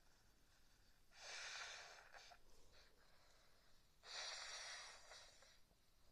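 A person with a head cold making two forceful, breathy nasal blasts, each about a second long, the second about three seconds after the first.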